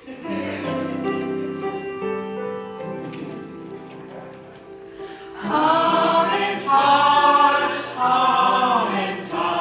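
Musical introduction to a song: held chords play for about five seconds, then a group of voices comes in singing loudly over the accompaniment about halfway through.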